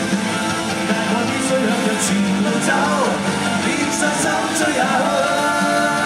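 Live rock band music: drums, guitars and a singing voice, with cymbal hits about two and four seconds in.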